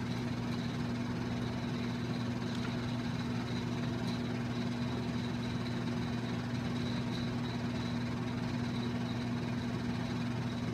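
A steady low hum that does not change, with a faint high tone above it.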